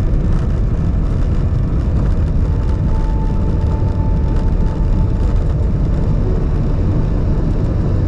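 Jet airliner cabin noise as the aircraft rolls along the ground: a loud, steady low rumble of the engines and wheels, heard from a seat over the wing. A faint whine comes in about three seconds in and fades a couple of seconds later.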